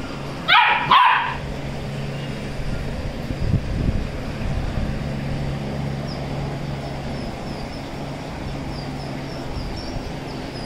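Labrador retriever puppy giving two short, high barks, each falling in pitch, about half a second apart near the start, over a steady low hum.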